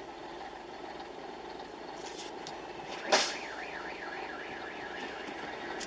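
Road traffic heard from inside a car on a dashcam, with a single sharp loud knock about three seconds in, followed by a warbling electronic alarm tone for about a second.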